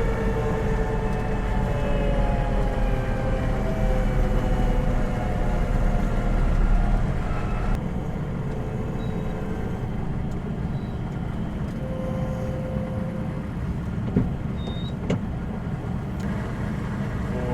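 Truck engine running with road rumble, heard from inside the cab. The low rumble drops suddenly about eight seconds in, and a few short clicks come near the end.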